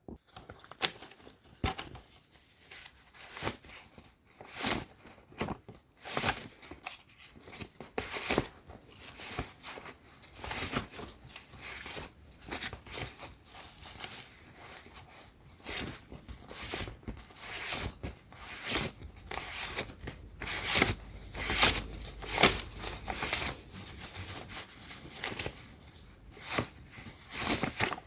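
Paper banknotes being counted by hand: quick crisp flicks and rustles of bills peeled off a stack one after another, a few each second with short pauses.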